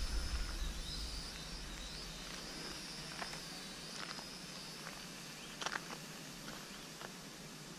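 Small quadcopter drone's propellers and motors whining faintly overhead, the pitch wavering up and down as the throttle changes and fading as the drone climbs away. A few short clicks and chirps sound in the second half.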